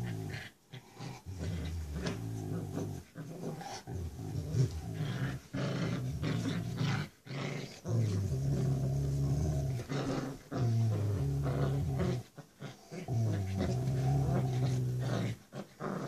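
Rottweilers growling in play during a tug-of-war over a toy: long, low growls in spells of one to three seconds, broken by short pauses.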